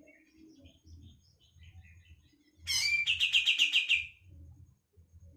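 Green leafbird (cucak ijo) calling: a few soft chirps, then about halfway through a sudden loud burst of rapid, evenly repeated notes lasting about a second and a half. This is an agitated response to a master-song recording.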